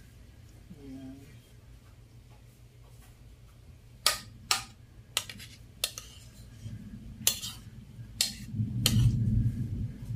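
A spoon clicking against a plastic bowl and container as mango slices are scooped and laid in: about seven sharp clicks from about four seconds in, with a low rumbling handling noise near the end.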